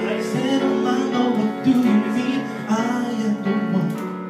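A man singing into a microphone, amplified, over electronic keyboard accompaniment with held chords.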